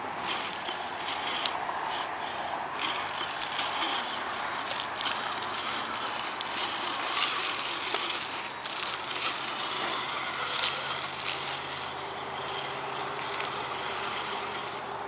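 Tamiya Tundra RC scale truck crawling over loose gravel and dirt: its small electric motor and gears run steadily under a crunch of stones, with frequent sharp clicks and ticks of pebbles.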